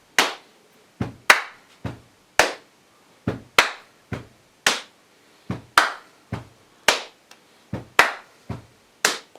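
Body percussion: hands slapping the thighs alternating with sharp hand claps in a steady, even rhythm, about two strokes a second, the claps the loudest.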